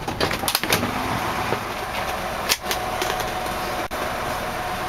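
1981 Ford F100's 5.0-liter carbureted V8 idling steadily, heard from inside the cab, with a steady hum and a few light clicks.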